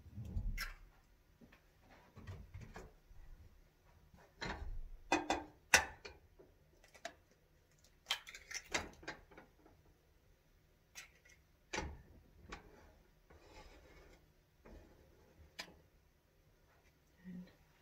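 Irregular clicks, knocks and rustling of things being handled and set down on a kitchen counter, with the sharpest knock about six seconds in.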